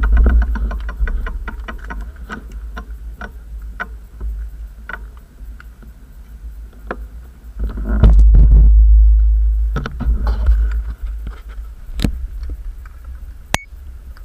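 Wind buffeting the microphone as a low rumble, gusting loud at the start and again about 8 seconds in, with scattered clicks and knocks.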